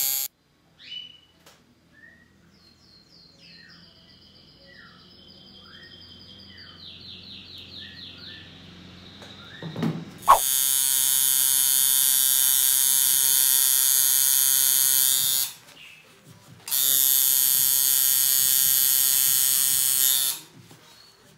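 Tattoo machine buzzing at the skin. It starts about ten seconds in, runs for about five seconds, stops briefly, then buzzes again for about four seconds.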